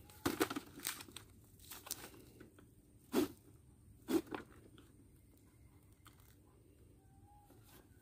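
Crinkling and rustling of a printed feed sack held over a field trap while the catch is worked into it, heard as a handful of separate sharp crunches with quiet gaps between, the loudest about three and four seconds in.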